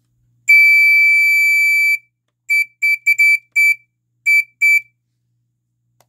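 Piezo horn of a vintage JS&A-style compact smoke alarm sounding its test: one steady, shrill, high-pitched tone for about a second and a half. After a short gap comes a quick string of about eight short beeps at the same pitch as the test dot is tapped.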